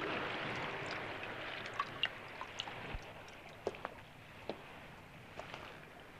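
Water lapping quietly around moored rowboats, with scattered small drips and splashes.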